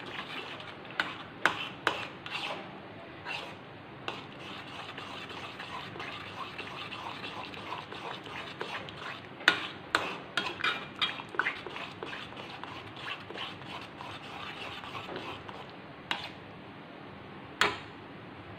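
A steel spoon stirs a thick mango and rice-flour mixture in a metal pan, kept moving so it doesn't stick to the bottom. Irregular clinks and scrapes of the spoon against the pan come in two busy spells, with two single knocks near the end.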